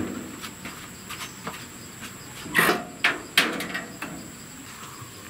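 A corrugated iron sheet door on a wooden frame being pulled shut: a scrape and rattle of the tin about two and a half seconds in, then two sharp knocks as it meets the frame.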